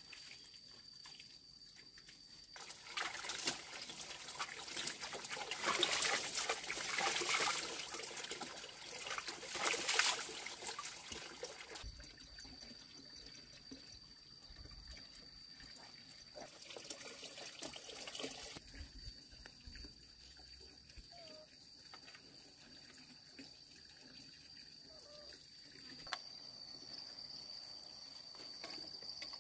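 Water splashing and trickling as wet laundry is handled in plastic basins, loudest for about ten seconds near the start before dying down. A steady high-pitched insect trill runs underneath.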